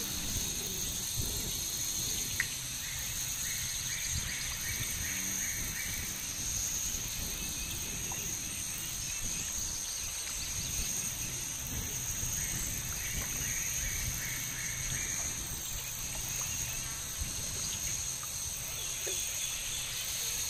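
Added wetland nature ambience: a steady high drone of insects over a low even wash, with a rapid pulsing trill rising above it twice.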